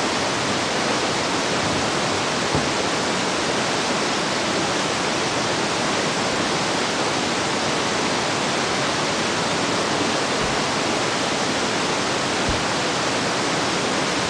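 Waterfall rushing: a steady, loud, even noise of falling water, with a couple of faint low bumps near the end.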